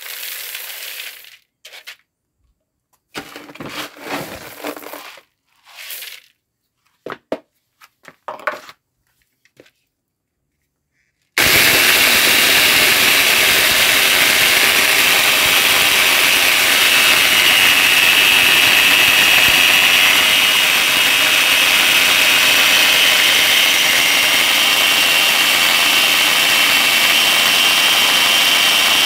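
Mixed corn and grain poured into a bucket in several short bursts, then about eleven seconds in an angle grinder rigged as a corn mill starts suddenly and runs steadily and loudly, its spinning blade milling the grain into coarse meal.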